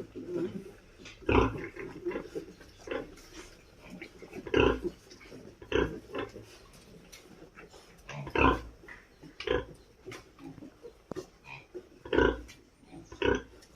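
Pigs grunting: short, repeated grunts at irregular intervals of one to a few seconds, with about seven louder ones among fainter ones.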